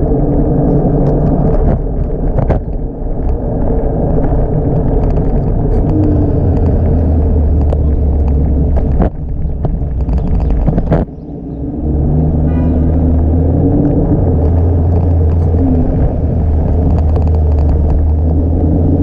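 Loud, steady low rumble of road and traffic noise picked up while riding a Segway Ninebot Max G30LP electric kick scooter through city streets, with brief dips about 9 and 11 seconds in.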